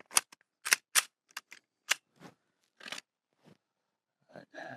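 Pistol being loaded and made ready: a quick run of sharp metallic clicks and clacks in the first two seconds, then softer scattered handling noises.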